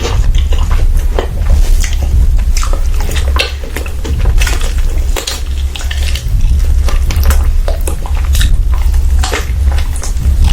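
Cutlery clinking and scraping against a plate in close-miked, irregular clicks while a meal is eaten, over a steady low hum.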